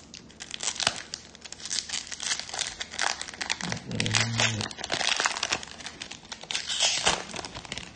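Plastic foil wrapper of a trading-card pack being torn open and crinkled by hand: a dense, irregular crackling.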